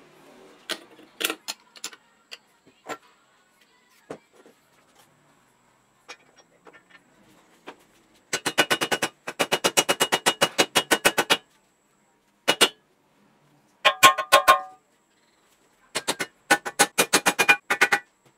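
Rapid mallet taps driving a headset cup into a child's bicycle's steel head tube. The taps come in runs of several strikes a second, with pauses between runs. One short burst near the middle rings with a metallic tone.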